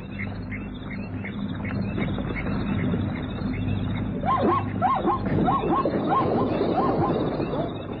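Wild animal calls from an African waterhole field recording: a steady series of short high chirps, about three a second, fading out in the first two seconds, then a run of rising-and-falling cries about twice a second starting about four seconds in.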